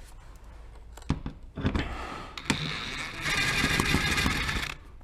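Impact wrench with a 10 mm socket run in one burst of about a second and a half near the end, hammering out a bolt of the plastic engine undertray. Scattered knocks and clicks of handling come before it.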